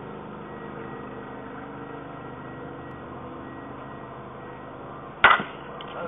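A baseball bat hits a pitched ball once, a single sharp crack about five seconds in, over a steady background hum.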